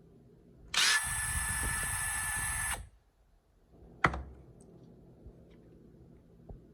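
DeWalt cordless impact driver spinning free with no load for about two seconds, a steady high whine that starts and stops sharply with the trigger. A single sharp click follows about a second later.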